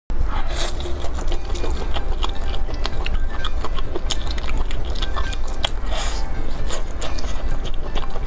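Close-miked chewing and biting of spicy fried meat skewers: wet mouth sounds with many small, irregular crackling clicks.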